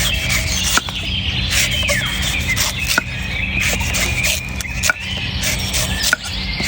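A sharp knife striking and cutting coconuts, with a few separate sharp chops a second or two apart. Chirping birds or insects and a steady low hum run underneath.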